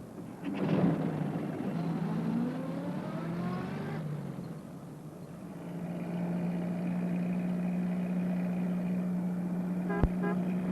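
Small van engine pulling away, rising in pitch as it revs up over the first few seconds, then settling into a steady drone. A sharp click comes near the end.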